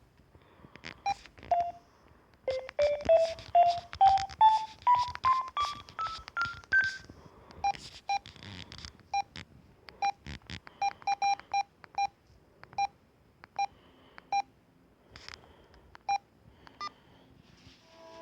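Samsung SGH-C160 mobile phone's keypad beeps as its buttons are pressed, each beep with the click of the key: a run of about a dozen short beeps stepping up in pitch, then a string of single beeps all at one pitch.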